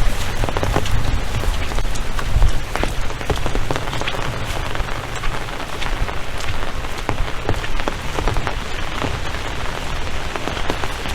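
Steady rain falling, with many sharp drop hits close by and a low rumble underneath.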